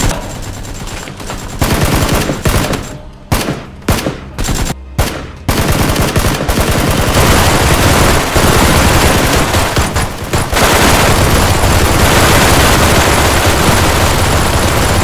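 Machine-gun fire in rapid bursts, a few short bursts with gaps between them around three to five seconds in, then continuous heavy firing.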